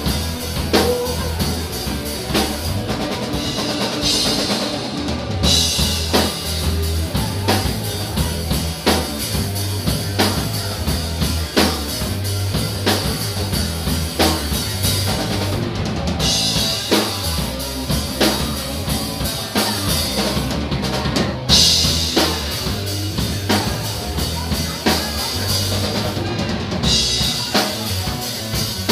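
Live rock band playing, with the drum kit to the fore: a steady kick and snare beat with stretches of cymbal wash, over electric bass and electric guitar.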